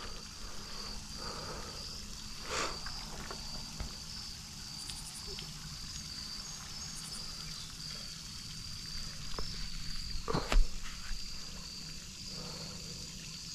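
A steady, high-pitched outdoor animal chorus runs throughout. A short knock comes about two and a half seconds in, and a louder one about ten and a half seconds in.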